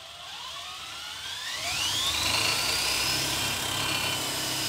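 DeWALT DCD999 cordless drill in high gear spinning up a brake-dyno rotor. Its motor and gearbox whine rises in pitch over about the first two seconds as it comes up to speed, then holds steady at full speed.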